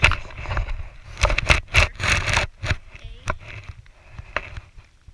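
Irregular knocks, clatter and scraping on a paddle boat, over a low rumble.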